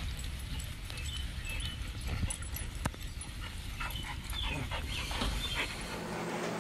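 Dogs giving a run of short, high-pitched cries in the second half, over a low rumble, with a few sharp clicks.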